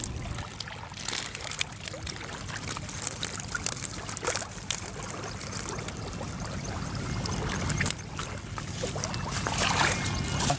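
Water trickling and splashing off a mesh keepnet of fish as it is lifted out of shallow river water and gathered up, with small scattered splashes and drips. Wind rumbles on the microphone underneath.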